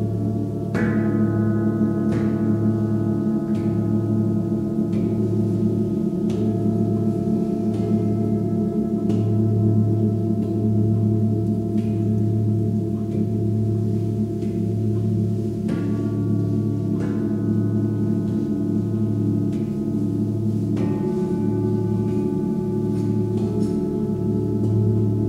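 Tibetan singing bowls of seven-metal alloy, struck one after another and left ringing, their tones overlapping with a slow wavering pulse in the deepest note. New strikes come about a second in, again a second later, and three more in the second half.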